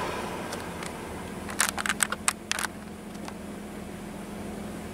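Steady in-cabin drone of a car driving on the highway, engine and tyre noise with a low steady hum. About a second and a half in, a quick run of sharp clicks sounds for about a second.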